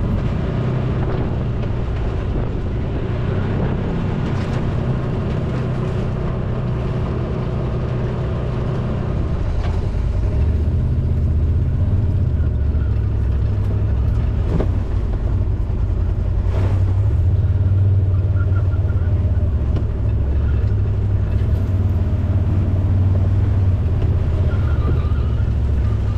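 A buggy's engine running steadily as it drives, a low rumble with a few brief knocks and rattles from the ride, getting a little louder about halfway through.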